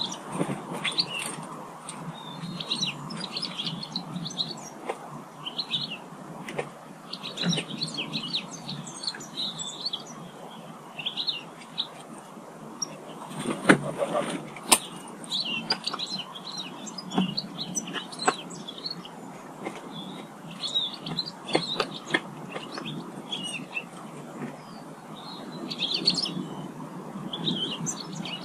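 Small garden birds chirping and calling in quick, scattered bursts throughout. A few sharp knocks cut across them, the loudest about halfway through.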